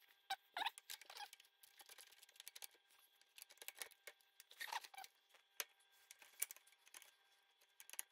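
Faint, irregular clicks and clinks of a socket ratchet and metal parts being worked by hand on a lawn tractor's steering sector plate and its bolts.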